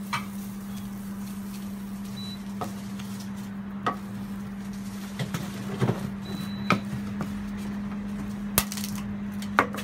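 A hand scraper spreading pancake batter over a hot round jianbing griddle, with scattered scrapes and knocks against the plate and a steady hum underneath. A few sharper taps come near the end as an egg is picked up and cracked.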